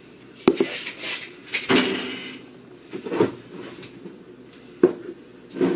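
Kitchen clatter: about five separate knocks and clanks of dishes and containers being handled, with a longer rattle about two seconds in.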